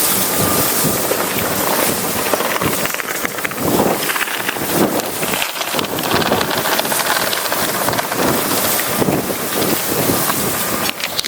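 Strong storm wind buffeting the microphone, rushing and gusting.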